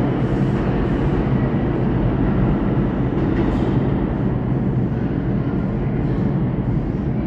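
R142 subway train pulling away along the track, a steady rumble that slowly fades as it recedes down the tunnel.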